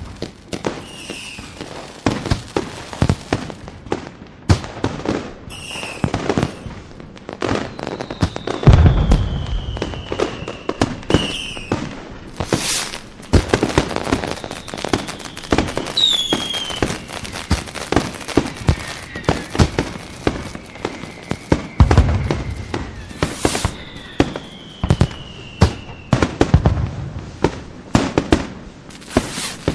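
Fireworks display: a dense run of bangs and crackling, with heavy deep booms about nine and twenty-two seconds in, and several whistles falling in pitch.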